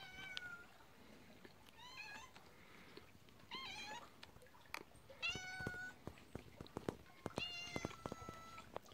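Calico cat meowing about five times, the last call the longest, with light clicks between the calls.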